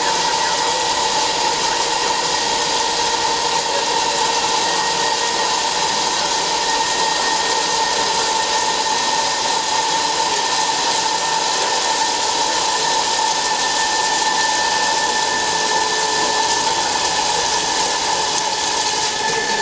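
DHL-1120x2000 CNC flat-bed lathe running while machining a part: a steady hiss with a steady high whine.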